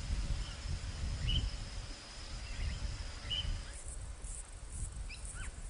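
Bush ambience: a faint, steady, high insect drone that stops about two-thirds of the way through, over a low background rumble, with a few short, faint bird chirps scattered through it.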